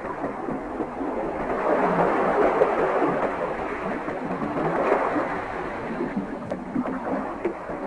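Underwater water ambience: a steady rushing wash of water that swells a little and eases off.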